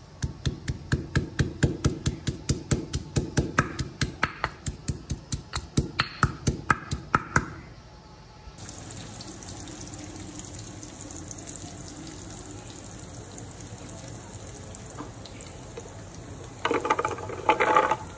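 Garlic being pounded with a pestle in a stone mortar: rapid, even strikes, about four a second, for roughly seven seconds. Then a faint steady hiss, and about a second of louder noise near the end.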